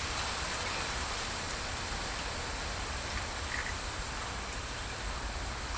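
Steady outdoor hiss with a low wind rumble on the microphone, and a faint short high note about three and a half seconds in.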